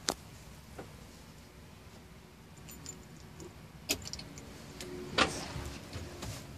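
A few sharp clicks and a light jingling rattle inside a truck cab, over a faint low rumble.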